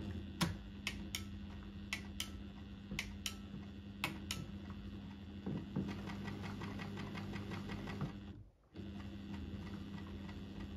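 Pfaff 1229 sewing machine running on its electric motor with a steady hum and a series of sharp clicks in the first four seconds; it stops for about half a second around eight seconds in and starts again. A test run after a few drops of oil on a mechanism that had been moving stiffly, and it now runs looser.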